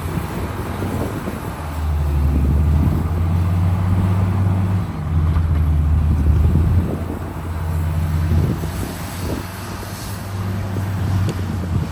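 Heavy diesel engine of earthmoving machinery working under load. A deep engine note swells several times, first about two seconds in and again around five and eight seconds in, then eases off near the end.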